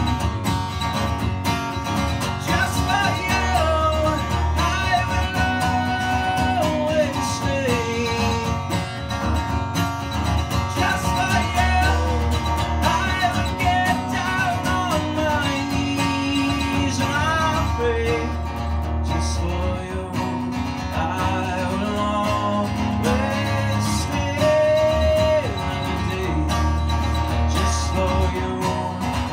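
Acoustic guitar strummed steadily in a country-style song, with a man singing over it.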